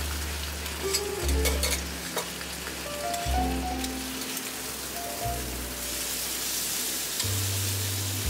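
Bacon and an egg sizzling on a flat-top griddle, with sharp clicks and scrapes of a metal utensil on the hot plate in the first two seconds as the bacon is turned. The sizzle grows louder from about six seconds in.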